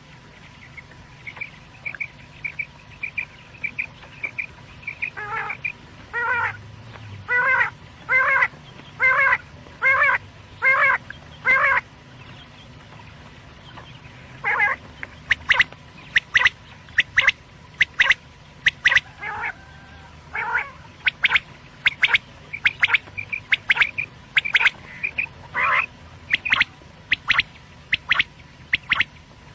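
Quail calling: runs of short, rapidly repeated notes, first a quick light series, then louder spaced notes, and after a brief pause a long run of sharp clipped calls.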